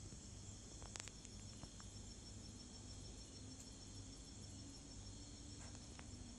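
Faint crickets chirping steadily in an even, pulsing rhythm, with a couple of small clicks about a second in.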